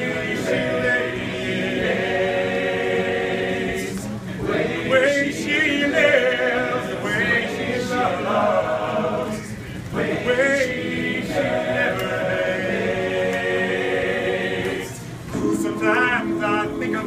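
Male a cappella group singing held close-harmony chords, with a higher lead voice moving over them. The chords break off briefly about four, ten and fifteen seconds in before the next phrase.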